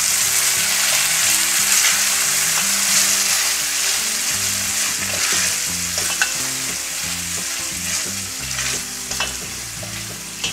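Onion, garlic and ají amarillo paste sizzling in hot oil in a stainless steel pot while being stirred with a wooden spoon, with a few short scrapes of the spoon against the pot in the second half. The sizzle eases off a little toward the end.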